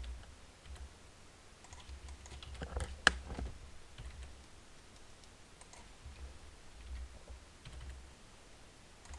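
Scattered computer keyboard key presses and mouse clicks, the kind made working Blender's rotate tool, bunched together about three seconds in where the loudest click falls; a faint low hum runs underneath.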